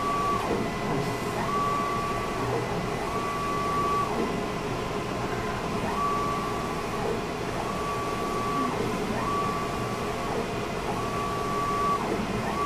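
Stratasys Connex 500 PolyJet 3D printer running: the print head carriage sweeps back and forth over the build tray, with a short high motor whine on each pass, about every second and a half, over a steady whirring machine noise.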